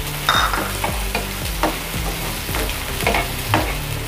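Chopped onion and capsicum sizzling in hot oil in a pan, with a spoon clicking and scraping against the pan about twice a second as they are stirred.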